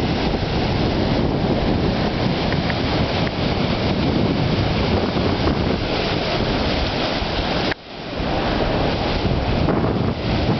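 Sea surf with heavy wind buffeting the microphone, a loud steady rushing noise. About three quarters of the way through it drops away suddenly, then builds back up within a second.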